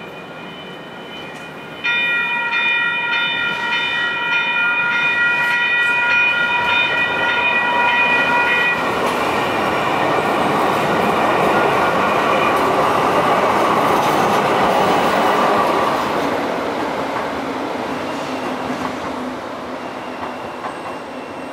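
A Siemens-Duewag U2A light rail train sounds a steady multi-tone horn for about seven seconds. The train then passes over the crossing: its wheels and motors swell to a loud rumble and slowly fade.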